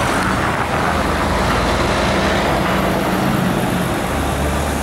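A coach and police motorcycles passing in city traffic: a steady engine drone with road noise, and a deeper engine note coming in about four seconds in as a police motorcycle rides by.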